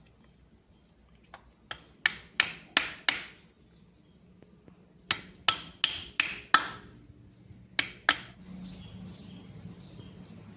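Sharp hammer taps on metal at the camshaft end of a diesel injection pump, a part being driven home on the shaft: a run of about six taps, a second run of five, then two more, each run at about three taps a second.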